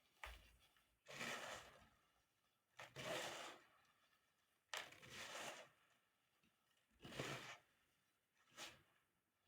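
Crusted pure white baking soda being crushed: a series of about six soft, gritty crunches roughly every one and a half seconds, some starting sharply.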